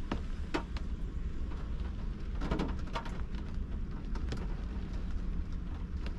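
Rain falling on a car's roof and windshield, heard from inside the car: scattered sharp drop taps over a steady low rumble.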